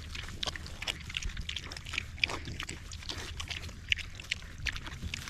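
Pigs eating raw potatoes and apples: irregular crunching, chomping and smacking, several bites a second.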